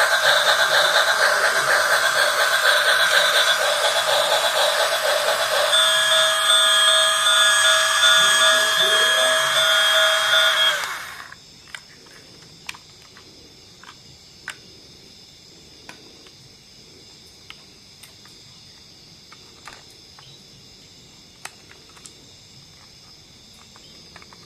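A loud hiss with a steady whistle-like chord joining about halfway, cutting off suddenly; afterwards only faint, irregular clicks.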